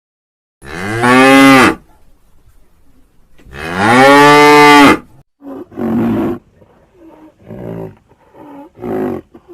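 Cow mooing: two long, loud moos, then a run of shorter, quieter calls.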